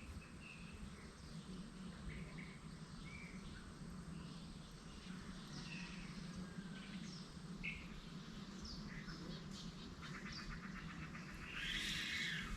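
Scattered short bird chirps over faint steady background noise, with a rapid rattling sound in the last couple of seconds.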